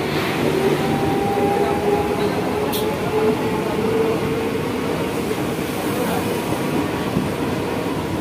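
Mumbai AC local electric multiple-unit train running alongside, a steady rumble with a faint whine that rises slightly in pitch over the first few seconds. A brief high hiss about three seconds in.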